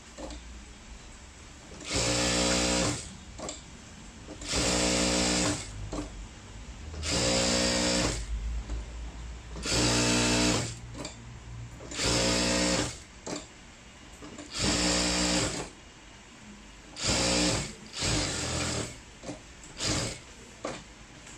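Bruce Q5 industrial single-needle lockstitch sewing machine stitching fabric in about ten short runs of roughly a second each, its motor and needle running at a steady speed, with short pauses between runs.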